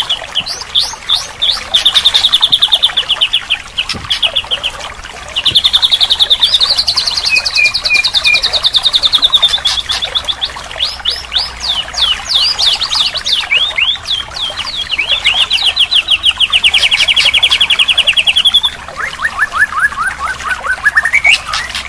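White-rumped shama (murai batu) song played as a training recording: long, fast trilled phrases alternating with rapid series of sweeping chips, with a short lull about four seconds in.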